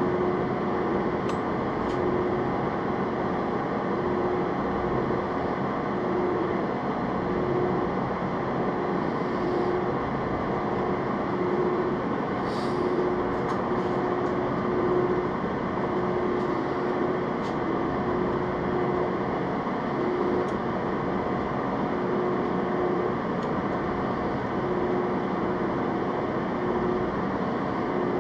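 Machine tool running steadily under power, with a hum that swells and fades in a regular beat every second or so, and a few faint clicks.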